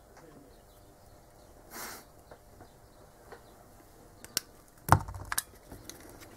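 Quiet workbench room tone with a short soft hiss near two seconds in, then a few light clicks and one louder knock in the second half as the circuit board is handled.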